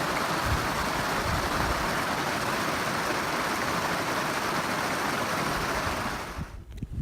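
Steady rushing of water, an even hiss with no pitch, fading out near the end.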